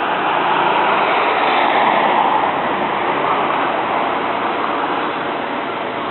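Rushing whoosh of a large flock of birds' wings as the flock sweeps past, swelling over the first two seconds and then slowly fading.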